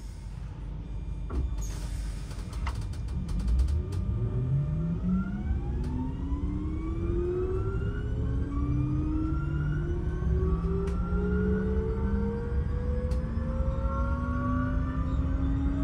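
Electric train pulling away: the traction motors' whine, several tones together, starts about three seconds in and rises steadily in pitch as the train gathers speed, over the low rumble of wheels on the track. A few clicks come in the first seconds.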